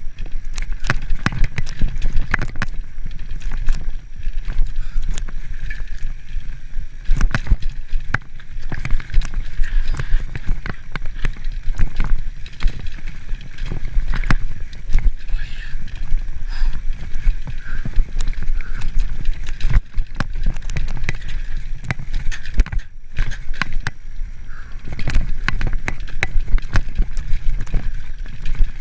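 Mountain bike riding fast down a rough dirt singletrack: tyres running over dirt and rocks, with frequent knocks and rattles from the bike and a steady low rumble.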